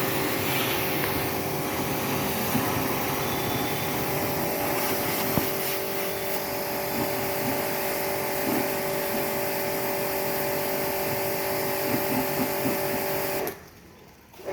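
A motor running steadily, a fixed hum with a broad hiss over it, that cuts off near the end.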